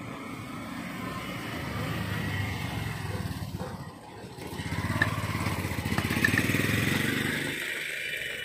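Small auto-rickshaw engine running close by as the vehicle drives past. It throbs, grows louder, dips briefly, then swells again before fading near the end.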